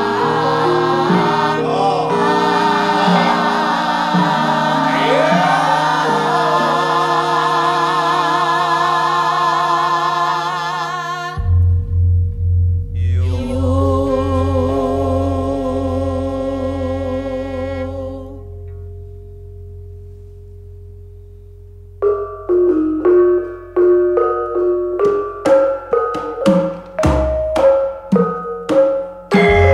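Javanese gamelan with a chorus of singers. For about ten seconds the voices sing over sustained bronze notes. Then a deep gong stroke hums and pulses as it dies away under the fading singing. After a quieter moment, mallet-struck metallophones begin a new passage about 22 seconds in.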